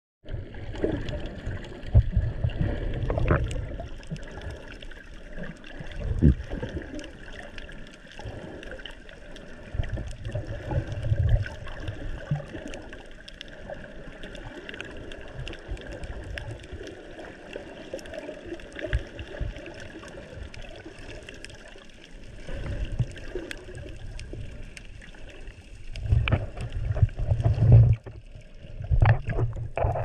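Muffled water sound recorded by a camera just under the sea surface: water sloshing and surging around the camera in low swells every few seconds, loudest near the end, over a steady hiss with scattered faint clicks.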